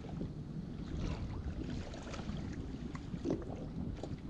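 Small waves lapping and slapping against a kayak hull, with wind on the microphone and one short, louder slap about three seconds in.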